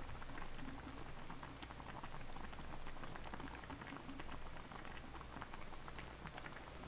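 Beef-tripe hot pot (sogopchang jeongol) bubbling at a boil on a tabletop burner: a steady dense patter of small pops.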